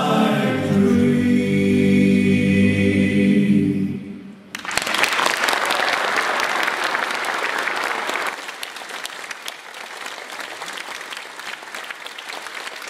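A group of men singing a long held chord in close harmony, which cuts off about four seconds in. Then an audience applauds, strongest for a few seconds and then tapering off.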